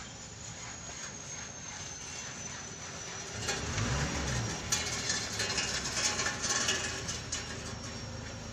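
Aerosol throttle body cleaner sprayed in short hissing bursts onto a throttle body, with rubbing and handling noises and a few clicks. The spraying starts about three seconds in and stops near the end.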